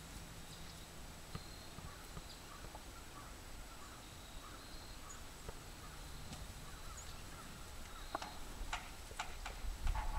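Cattle moving about in a pen: faint scattered hoof steps, with several sharp knocks near the end.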